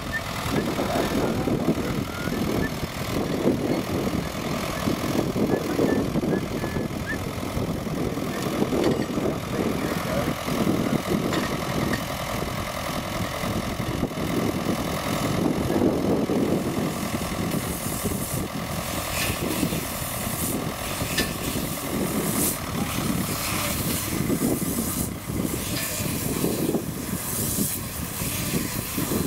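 A vehicle engine running steadily, with a run of sharp clicks or crackles in the last third.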